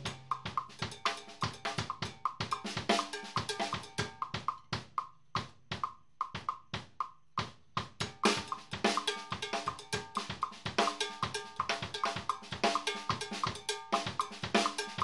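Drum kit groove: a foot-pedal jam block clacks out a clave pattern on the left foot against a tumbao pattern on the bass drum, while sticks play the snare and toms over it. The playing thins out for a few seconds near the middle, then fills back in.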